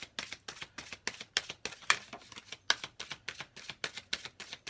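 A deck of oracle cards being shuffled by hand: a quick, irregular run of sharp card snaps and slaps, about five or six a second.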